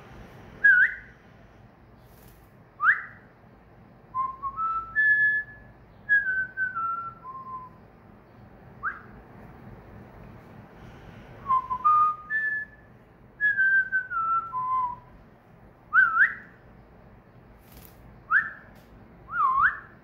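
Cockatiel whistling a song: phrases of clear whistled notes, some quick upward slides and some runs of stepped notes falling in pitch, with short pauses between phrases.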